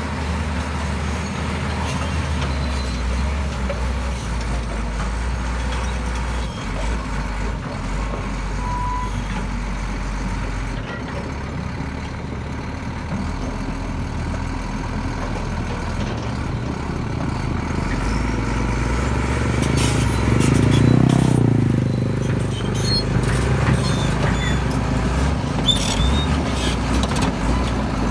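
Heavy diesel construction machinery running steadily with a low rumble. It swells louder about two-thirds of the way through, and scattered knocks and clanks follow.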